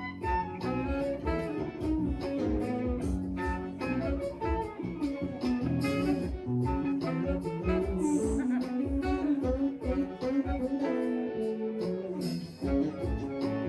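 Live band playing an instrumental passage without vocals: electric guitar and saxophone over keyboards, bass and a steady beat.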